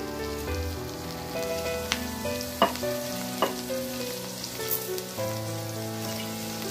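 Whole small onions (shallots) sizzling as they fry in oil in a kadai, with a few sharp clicks about two to three and a half seconds in. Soft instrumental background music plays along.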